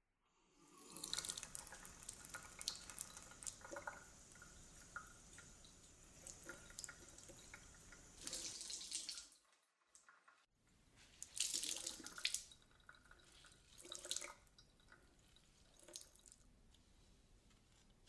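Water running from a kitchen mixer tap into a sink, starting about half a second in. After a short break near the middle it runs again, with louder splashing surges three times.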